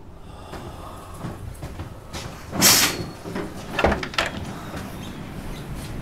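A few sharp knocks and bangs over a steady low rumble. The loudest bang comes about two and a half seconds in, followed by two smaller knocks close together about a second later.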